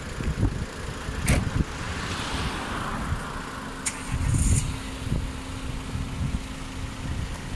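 Queued cars on a road, engines running, with a car moving in the lane alongside; wind rumbles on the microphone, and two sharp clicks come about a second in and about four seconds in.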